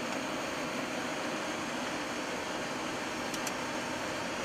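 Steady hiss and hum inside a Boeing 737 flight deck, with the engines and air conditioning running while the aircraft sits lined up on the runway before takeoff.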